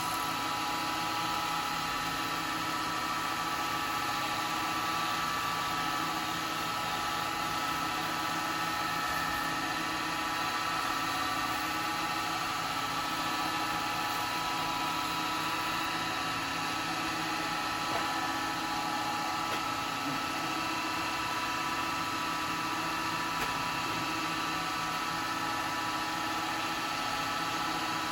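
Wood lathe running steadily at speed, its motor giving an even hum with a steady whine, as the freshly oiled bowl spins to dry the finishing oil.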